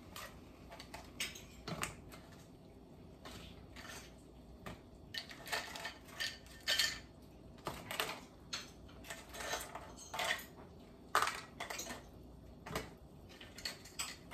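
Cooked crabs being put by hand into a stainless steel pot, their hard shells knocking and clattering against the metal pot and the glass bowl in short, irregular clicks.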